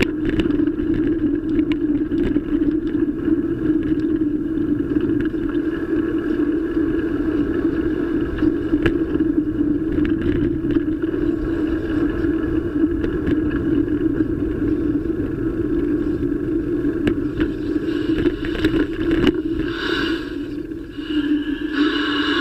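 Steady wind and road noise picked up by a bicycle-mounted camera while riding on a paved path, with the mount clicking and knocking over bumps. A higher-pitched sound comes in near the end.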